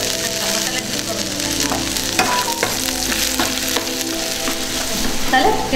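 Marinated meat pieces sizzling as they fry in oil and masala in a pan, stirred with a steel ladle that clicks and scrapes against the pan a few times.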